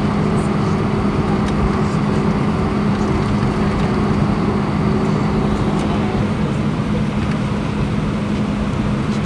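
Jet airliner taxiing, heard inside the cabin: the engines at taxi power give a steady hum over an even rushing noise, unchanging throughout.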